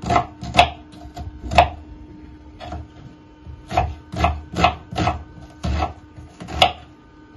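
Kitchen knife chopping an onion into large pieces on a wooden cutting board: about a dozen uneven knocks of the blade through the onion onto the board, coming faster in the second half.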